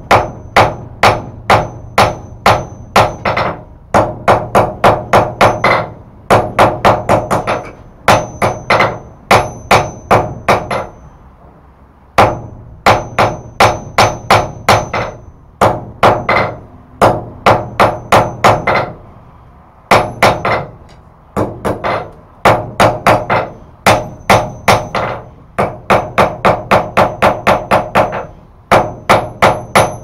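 Hand hammer striking a red-hot steel bar on an anvil, forging it to an even thickness. The blows come in runs of about three a second, faster near the end, broken by short pauses, and each blow rings out high.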